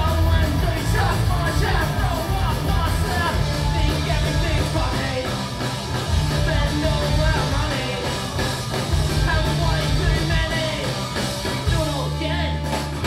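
Punk rock band playing live: electric guitars and bass under sung vocals, settling into a held chord near the end.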